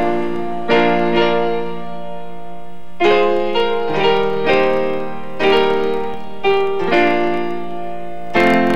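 Solo piano music: slow single notes and chords, each struck and left to ring out.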